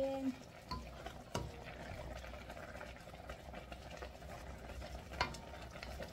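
Chicken, chili leaves and broth simmering in a steel wok while a wooden spatula stirs them, with a steady bubbling. A few knocks of the spatula against the pan are heard, the loudest about five seconds in.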